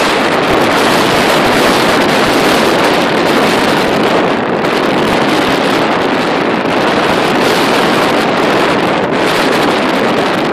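Storm wind over a choppy river with waves washing against the bank: a loud, steady rushing hiss.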